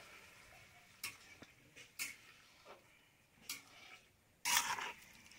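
Cooking utensil knocking and scraping in a pot of vegetables as they are stirred: a few faint, scattered clicks, then a louder scrape about four and a half seconds in.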